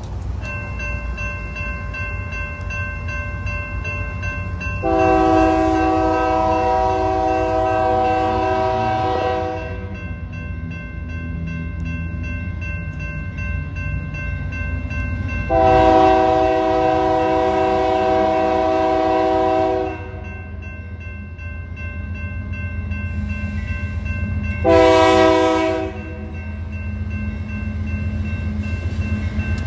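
Union Pacific diesel locomotive's multi-chime air horn sounding the grade-crossing signal: two long blasts, a short one, then a long one beginning near the end, over the low rumble of the locomotives. A grade-crossing warning bell rings steadily throughout.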